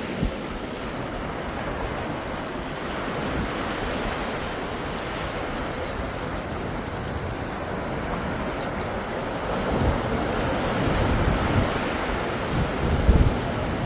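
Sea surf washing onto a sandy beach, a steady rush of breaking waves. Wind buffets the microphone from about ten seconds in, with a few heavier low thumps near the end.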